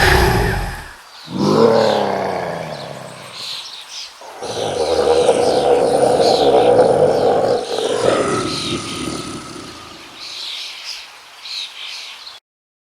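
Angry beast roar sound effect: a short roar, then a second roar about a second later that falls in pitch, then a long loud roar lasting about four seconds and trailing into quieter growls, with high chirps behind. The sound cuts off abruptly near the end.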